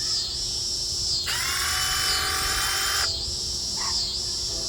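Milwaukee M18 Fuel brushless impact driver run briefly with no load: about a second in its motor whirs up quickly to a steady high whine, holds for under two seconds, then stops.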